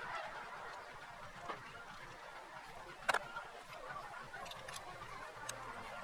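A few light, sharp clicks of hand tools on an engine during work on the valvetrain, the loudest about three seconds in, over a faint steady background.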